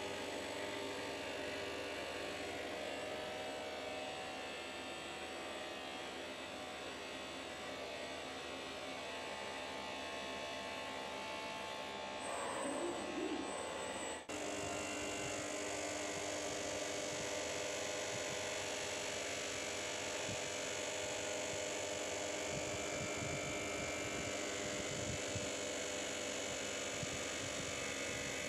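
FERM bench grinder running with a steady electric hum and whine while its wheel polishes a part held against it by a robot. The sound dips briefly about fourteen seconds in, then carries on steadily.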